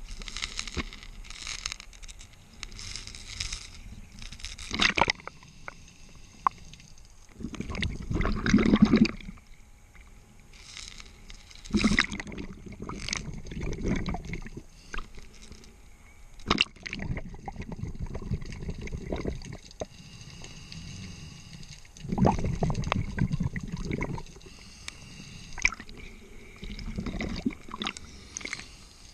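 Scuba diver breathing underwater through a regulator: hissing inhalations alternate with bubbling, gurgling exhalations, several breaths in a row, each exhale a loud, low burst of bubbles.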